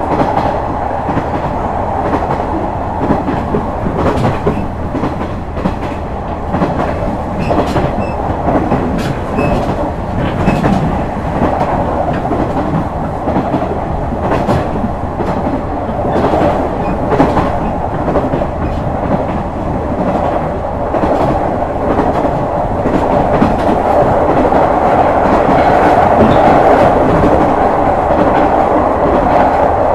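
JR West KiHa 126 series diesel railcar running at speed: a steady rumble of wheels on rail, with rail-joint clicks now and then. It grows louder in the last few seconds.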